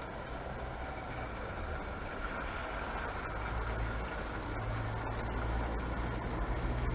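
Model tank locomotive and goods wagons running along garden railway track: a steady rumble of wheels on rails with a low hum, growing gradually louder.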